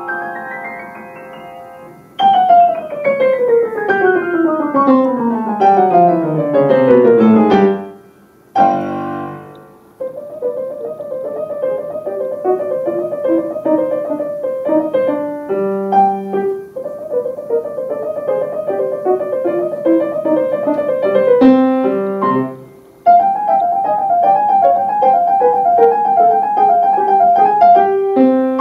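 A Steinway grand piano played solo: a rising run fades out, then a long fast run sweeps down the keyboard. After a short pause come rapid repeated notes over a slowly falling bass line, broken by sharp low chords, and after another brief break a quick repeating figure in the upper notes.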